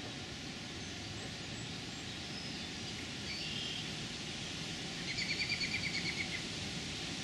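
A bird gives a rapid chattering series of about ten notes starting about five seconds in, after a few short, high chirps. Underneath is the steady rush of river rapids.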